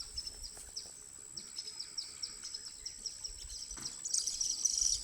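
Birds calling: a run of short, high chirps, each dropping in pitch, about three or four a second, growing denser and louder near the end, over a steady high whine.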